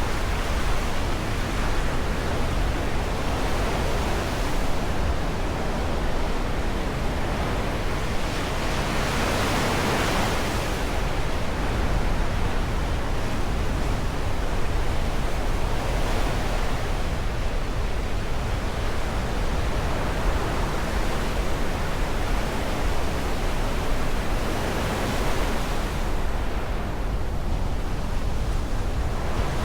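Black Sea surf breaking and washing on the shore: a continuous rushing hiss that swells and eases every several seconds, loudest about a third of the way in, over a steady low rumble.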